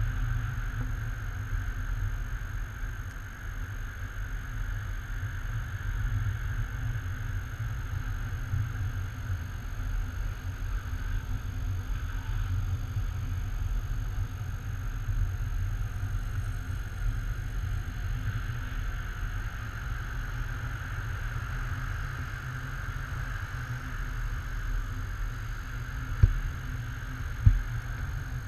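Wind rushing over the microphone of a stick-held camera during a tandem paraglider flight: a steady low rumble, with two sharp knocks near the end.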